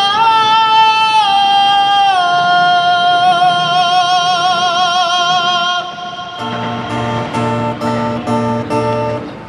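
A male singer holds one long, high wordless note with vibrato over an acoustic guitar, stepping down in pitch twice before breaking off about six seconds in. Then the acoustic guitar strums chords alone, about two strums a second.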